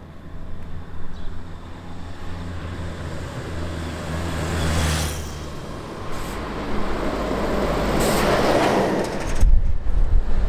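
A motor vehicle on the road close by. Its low engine hum is followed by engine and tyre noise that swells to a peak near the end and then falls away sharply.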